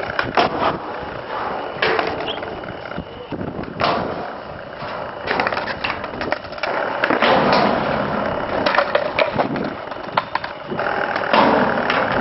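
Skateboard wheels rolling on concrete, with repeated sharp clacks of the board popping, landing and hitting the boxes and ledges.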